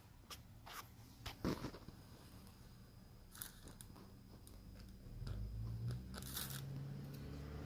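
Faint scattered clicks and light knocks, with a low steady hum setting in about five seconds in.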